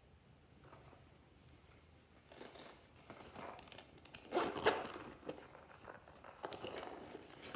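A zipper on a rabbit-shaped toy pouch being pulled open, with rustling and handling of the pouch and a few small clicks. It starts about two seconds in, after near quiet, and is loudest about four and a half seconds in.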